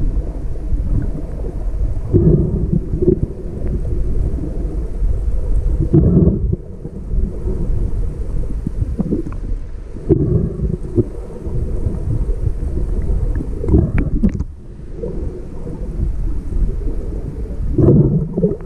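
Muffled underwater rumble and sloshing of lake water around a camera held below the surface, swelling every few seconds.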